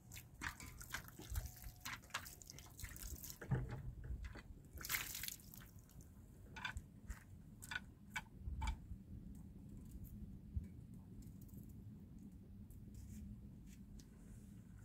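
Scattered small clicks and taps with some dripping liquid sounds, growing sparser after about nine seconds.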